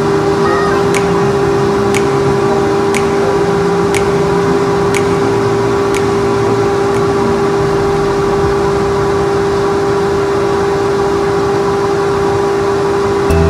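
Steady blower-motor hum of a pet grooming dryer running, with a constant whine. Faint sharp clicks come about once a second in the first few seconds.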